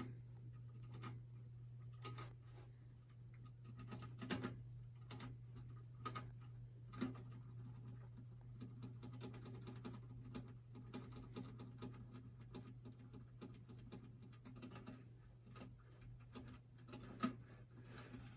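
Faint, irregular clicks and taps, with a few louder ones about 4, 7 and 17 seconds in, over a steady low hum.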